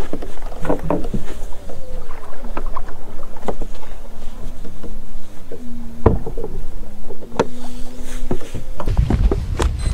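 Small waves slapping against the hull of a bass boat, with several sharp knocks. A faint low hum steps up and down in pitch through the middle.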